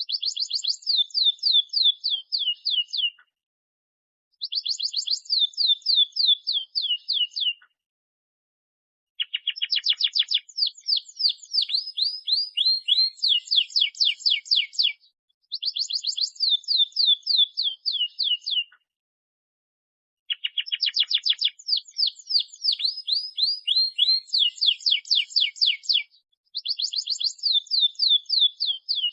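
Domestic canary singing in rapid trills of repeated downward-sweeping notes. The song comes in phrases of about three to six seconds, broken by short silences.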